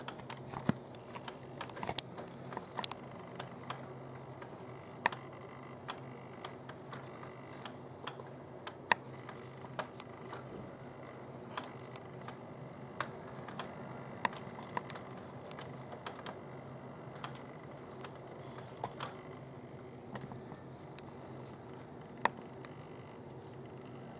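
Irregular sharp clicks and taps over a faint, steady low hum.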